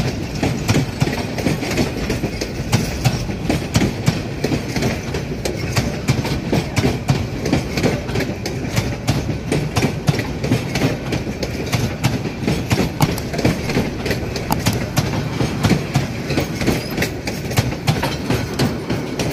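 Train carriages running past, a steady rumble with the wheels clattering over rail joints in a fast, uneven run of clicks.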